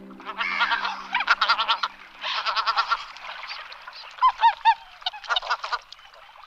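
Domestic geese honking in a rapid, overlapping run of calls, with a few of the loudest honks about four and a half seconds in, tailing off near the end.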